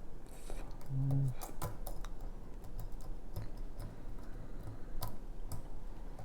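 Lock pick and tension wrench working the pins of a pin-tumbler challenge lock: small irregular metallic clicks and ticks, with a brief low hum about a second in.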